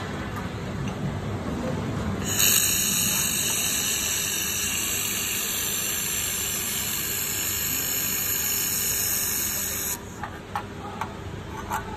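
Laser welding machine running a weld: a steady hiss starts about two seconds in and cuts off suddenly near ten seconds, over a low machine hum.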